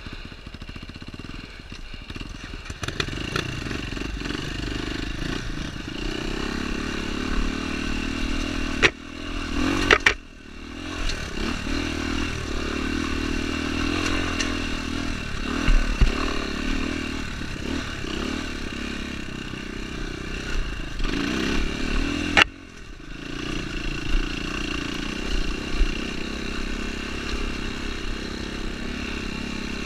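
Dirt bike engine running under throttle on a rocky trail climb, with clatter from the bike over stones. Sharp knocks about nine, ten and twenty-two seconds in are each followed by a sudden drop in the engine note, which then climbs back up.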